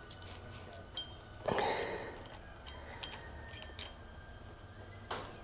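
Light clicks and a brief rustle of small parts being handled, the loudest rustle about one and a half seconds in and a shorter one near the end.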